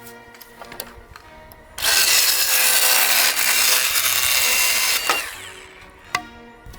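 Milwaukee M18 FUEL cordless mini chainsaw cutting through wood. The cut starts suddenly about two seconds in, runs loud for about three seconds and tails off, over background music.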